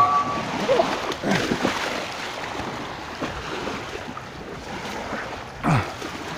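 Small waves washing onto a sandy shore, with wind on the microphone. Near the end comes one short, louder sound that falls in pitch.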